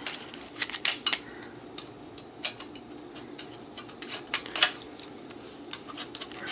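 Irregular clicks and light metallic taps from a bare 3.5-inch floppy disk drive mechanism being turned over and handled, its metal frame and levers knocking; the louder clicks come about a second in and again past the halfway mark.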